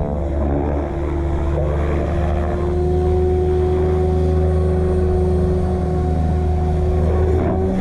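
Electric RC helicopter running, its motor and rotor making a steady whine with a held tone over a low rumble.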